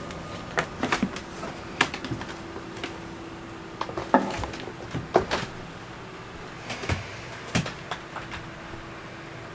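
Footsteps and knocks on the wooden companionway steps and cabin sole of a motor yacht: a series of irregular thumps and clicks, dying away near the end, over a faint steady hum.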